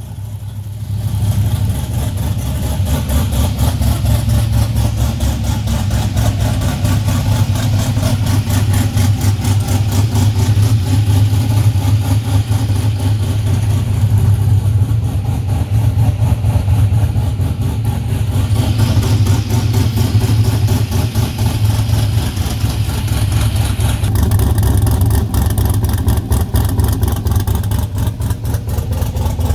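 A modified LS7 7.0-litre V8 with a BTR stage 4 camshaft, running steadily at idle without being revved.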